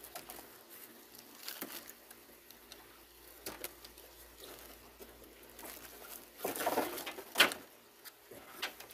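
Plastic tie-down snaps holding a toy truck in its cardboard box being cut with shears: scattered small clicks and snips, then cardboard and plastic packaging rustling, with a sharp snap about seven and a half seconds in.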